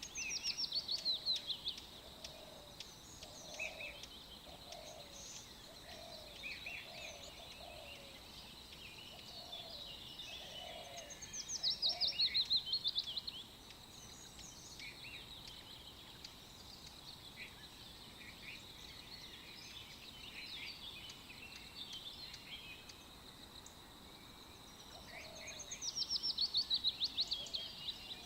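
Birds singing: a loud, rapid trill that falls in pitch, heard three times, with scattered high chirps between. A run of short, lower calls repeats through the first ten seconds or so.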